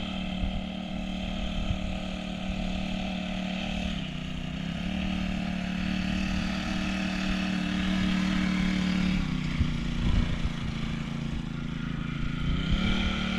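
Small 40cc four-stroke mini bike engine running as the bike is ridden, its pitch rising about four seconds in, dropping back about nine seconds in and rising again near the end as the throttle is opened and eased off.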